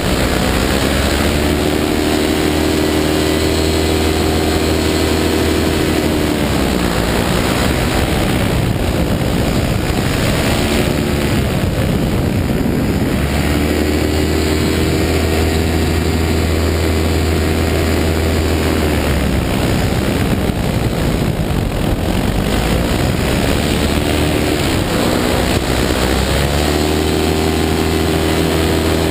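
Paramotor engine and propeller running hard, throttled back twice so the pitch sinks, then opened up again so it climbs back to full power.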